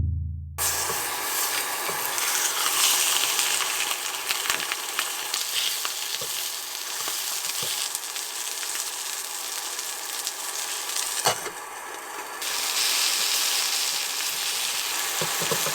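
Food sizzling in a hot frying pan, a steady frying hiss with occasional small pops. It briefly drops away about eleven seconds in, then comes back louder.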